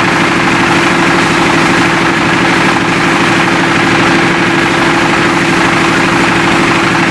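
A large engine idling steadily, with a constant hum and a fast, even pulse.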